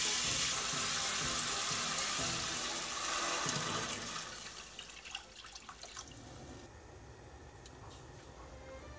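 Thin-sliced beef brisket sizzling in a hot pan on a gas stove while it is stirred. Water is poured in about four seconds in and the sizzle dies down, leaving a quieter simmer with a few clicks of a spoon against the pan.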